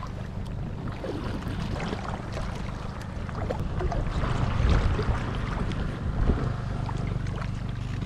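Wind rumbling on the microphone, louder in gusts about halfway through, over small water splashes and drips from kayak paddle strokes.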